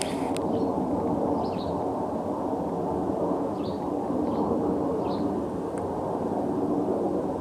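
Steady low rumble of an airplane overhead, with short bird chirps over it about half a dozen times.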